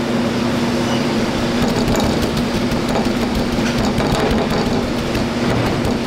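Steady mechanical hum with a rushing noise, with faint light clicks in the middle.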